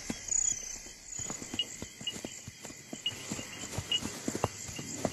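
Zebra hooves stepping through grass: scattered, irregular soft clops and knocks. Night insects chirp briefly throughout.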